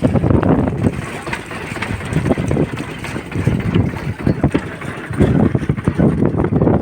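Wind buffeting the microphone aboard a moving boat, with the boat's engine running underneath in a low, uneven rumble.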